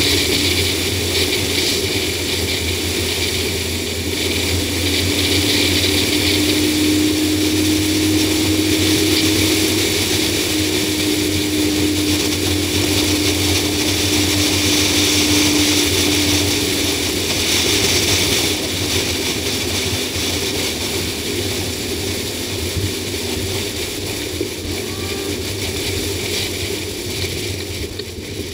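A 2004 Ford Explorer driving at steady road speed, heard from a camera mounted on its hood: a constant rush of wind and road noise with a low hum underneath. A steady tone joins in about five seconds in and fades out a little before halfway.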